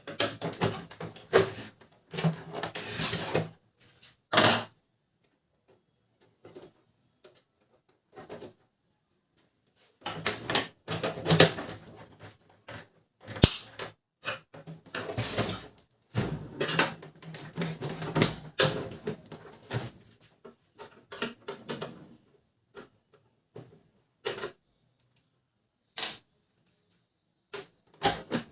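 Canon LBP 2900 laser printer's plastic casing and parts being handled and taken apart: irregular clicks, knocks and rattles in clusters, with a mostly quiet stretch of several seconds in the middle.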